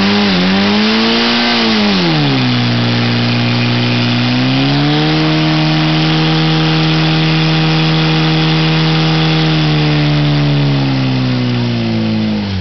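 Portable fire pump's engine running hard while pumping water into the attack hoses. It drops back about two seconds in, climbs again a couple of seconds later and holds at high revs, then winds down right at the end.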